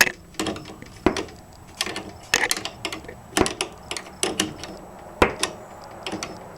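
A wrench working the 13 mm set nut on a garage door opener's chain tensioner: irregular sharp metallic clicks and clinks, about one or two a second, as the nut is tightened.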